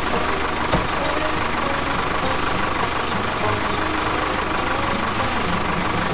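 A small motor or engine running steadily, a continuous mechanical hum with a fast, fine rhythm. There is a single short click just under a second in.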